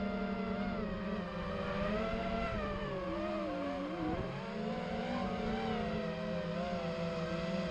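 Racing quadcopter's four motors and propellers whining, recorded from its onboard camera. The pitch falls and rises with the throttle and dips low about three and a half seconds in, over wind rushing on the microphone.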